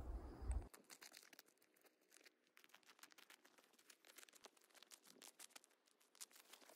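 A low rumble on the microphone that cuts off abruptly under a second in, then faint, irregular crunching of footsteps on crusty snow and forest litter.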